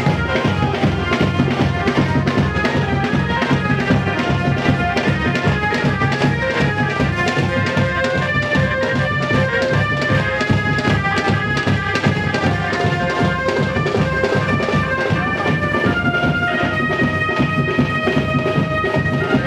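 Loud Indian dance music with a fast, dense drum beat and a melody line of held notes over it.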